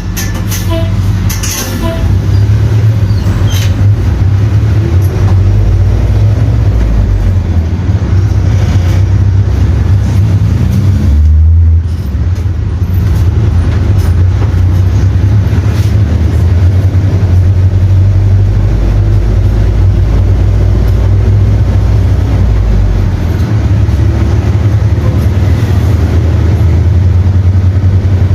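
The 160 hp four-cylinder inline Cummins ISF diesel of a Volksbus 9-160 OD bus, running steadily and loud. Its note climbs between about ten and twelve seconds in, dips briefly, then carries on.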